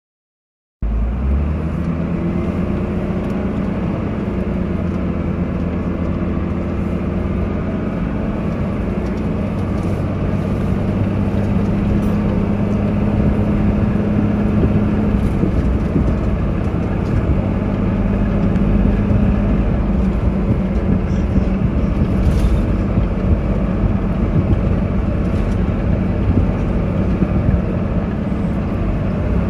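Dennis Dart single-deck bus's diesel engine pulling hard and steadily up a steep hill, heard from inside the passenger saloon, growing slightly louder as the climb goes on. It cuts in about a second in, with faint clicks over the engine note.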